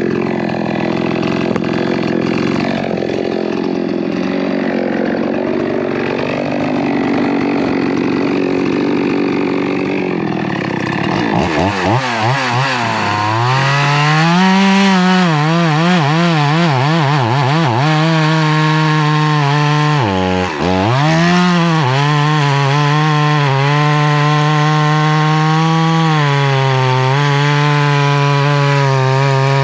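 Poulan Pro Super 380 two-stroke chainsaw running loud and continuous. For the first third it sounds rougher with a wandering pitch; then it settles to a clear engine note that warbles up and down, dips briefly about two-thirds in, and runs on steadily.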